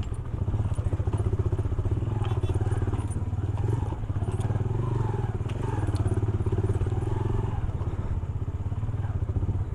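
Motorcycle engine running at low revs with an even beat as the bike picks its way over a rocky dirt track, with a few short knocks along the way.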